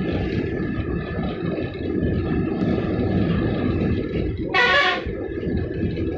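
Steady engine and road rumble of a moving bus, heard from inside the bus. One short, loud horn blast comes about four and a half seconds in.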